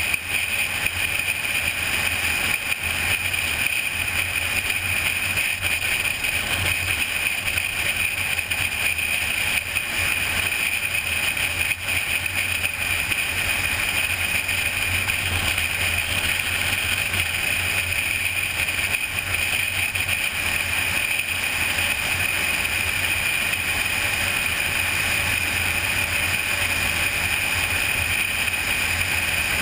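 Steady wind and road noise of a car cruising down a highway, picked up by a GoPro camera mounted on the car's hood.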